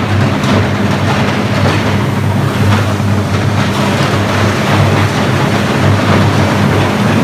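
Electric arc furnace running: the arcs between its graphite electrodes and the charge give a loud, harsh crackling over a steady low hum.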